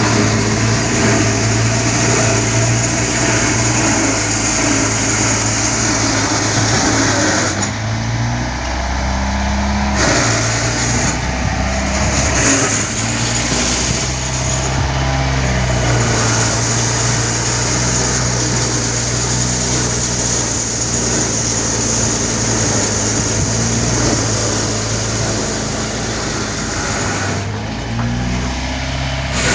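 An engine running steadily under load, its pitch shifting a few times: about a quarter of the way in, again shortly after, and near the end.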